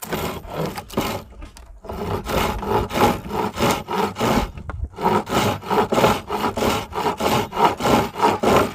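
Hand sawing through old, dry, very hard Osage orange with a coarse-toothed carbide pruning blade made for a reciprocating saw, fitted in a homemade handle. It makes quick, rasping back-and-forth strokes, about three a second, with two short pauses.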